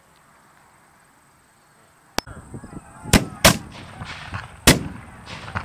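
A ragged volley of black-powder cannons firing: about five loud booming reports spread over three and a half seconds, starting about two seconds in, with smaller cracks and echoes between them.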